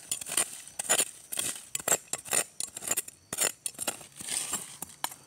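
Metal spoon scraping and clinking in gritty soil and against small stones while digging out young earthstar mushrooms: irregular sharp scrapes and clicks, several a second.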